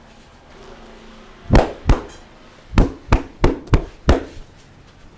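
A barber's hands striking a massage client in percussive massage strokes: two sharp slaps about a second and a half in, a short pause, then five more at about three a second.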